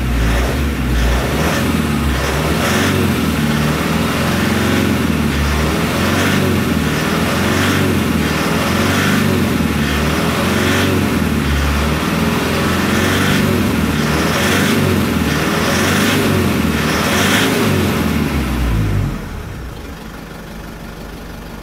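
Mitsubishi 4D56 2.5-litre four-cylinder diesel engine held at a fast idle of around 2,000 to 2,500 rpm, then dropping back to a quieter idle near the end.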